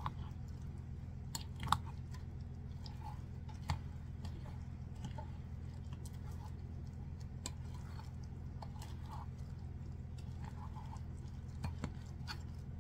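A spoon folding thick, wet cornmeal batter in a glass bowl: soft sticky squelching with scattered clicks of the spoon against the glass, the sharpest about two seconds in and again near four seconds. A steady low hum runs underneath.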